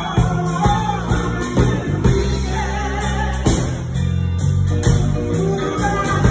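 A woman singing a gospel song solo into a microphone, over an accompaniment with strong bass and a steady beat.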